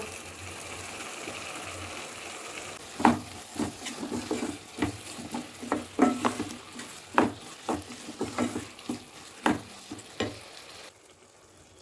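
Mushrooms, onion and tomato sizzling in a nonstick pan, then from about three seconds in a wooden spatula stirring them, with repeated knocks and scrapes against the pan over the frying sizzle. The sound drops away shortly before the end.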